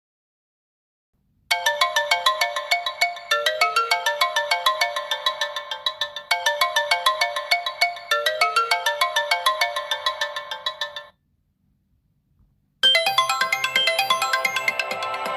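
Stock Infinix Note 7 phone ringtone playing: a bright melody of quick, short notes in a repeating phrase that starts about a second and a half in and cuts off after roughly nine seconds. After a short pause, a different, fuller ringtone begins near the end.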